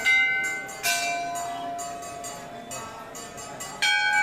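Temple bells struck by hand, each strike ringing on in several overlapping tones that fade slowly: one right at the start, another about a second in, and a louder one near the end.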